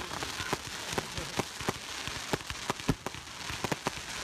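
Fireworks bursting and crackling: irregular sharp cracks, about three or four a second, over a steady fizzing crackle, with one deeper, louder bang about three seconds in.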